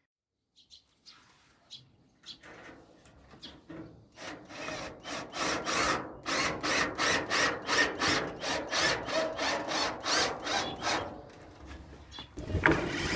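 Rhythmic rasping strokes of a tool working a wooden batten, about two to three a second. They start faint, grow louder a few seconds in, and fade near the end.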